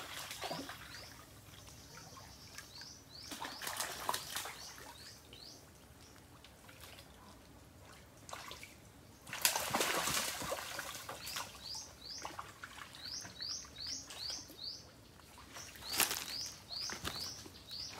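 Fish thrashing and splashing at the surface of a shallow canal, in loud bursts about four seconds in, around ten seconds in and near sixteen seconds. A bird calls throughout in runs of short rising chirps.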